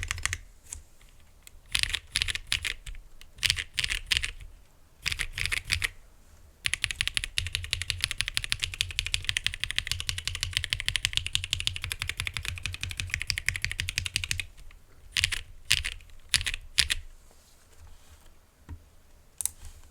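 Typing on a Glorious GMMK Pro custom mechanical keyboard with lubed NovelKeys Cream linear switches, aluminium plate and GMK keycaps. Short bursts of keystrokes come first, then a long stretch of fast continuous typing, then scattered strokes that thin out near the end.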